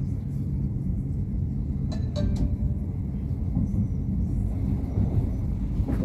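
Moving passenger train heard from inside the carriage: a steady low rumble of the wheels running on the rails, with a few brief clicks about two seconds in.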